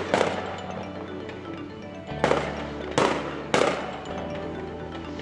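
Aerial firework shells bursting: a sharp bang just after the start, then three more in quick succession about two to three and a half seconds in, each echoing away. Background music with sustained notes plays throughout.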